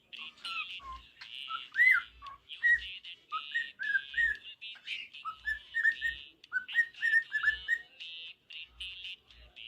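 Pet cockatiel chattering: a fast string of short whistled chirps, most rising in pitch, over a raspy buzz.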